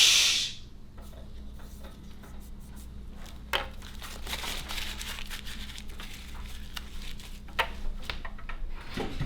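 A loud drawn-out "shh" hush fades out about half a second in. It is followed by faint scattered clicks and rustling in a small room.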